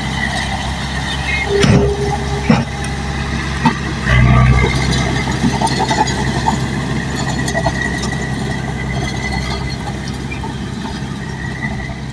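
Bulldozer's diesel engine running steadily while working, surging louder about four seconds in, with a few sharp clanks before the surge.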